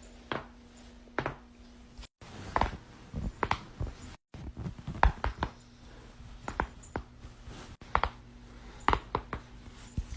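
Neck joints cracking during chiropractic neck adjustments: a run of sharp pops and cracks, one or two at a time, in short clips spliced together with abrupt cuts.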